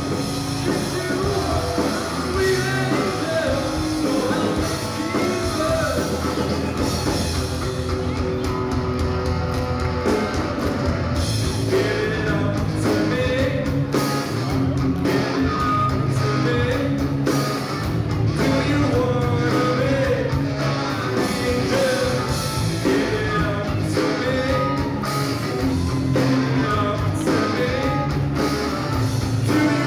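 Live rock band playing with a singer: vocals over electric guitar, bass and drum kit.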